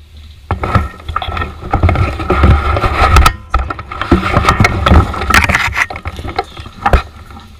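Loud rustling and scraping close against the camera microphone as the player moves through cover, with a low rumble and several sharp clicks or snaps.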